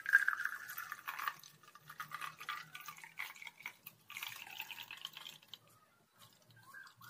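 Blended mint lime juice pouring through a sieve into a glass, a steady stream splashing into the filling glass, loudest as the pour begins and thinning to a trickle near the end.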